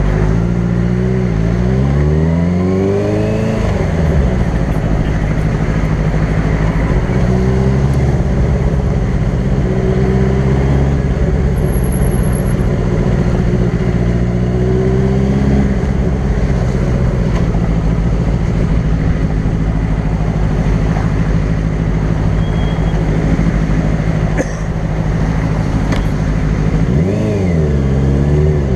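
Sport bike engine revving up in pitch over the first few seconds, then running at a fairly steady speed in highway traffic, with the revs rising and falling again near the end.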